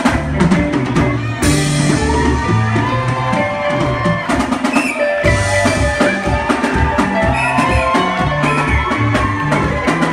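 Live band playing a dance groove: electric guitar lines over bass guitar and drum kit, with a steady beat.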